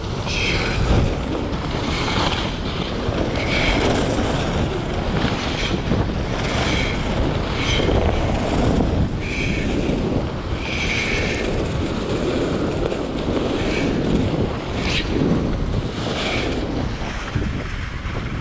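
Wind rushing over the microphone while skiing downhill, with a hissing scrape of ski edges on snow about every second and a half as the skis carve turns.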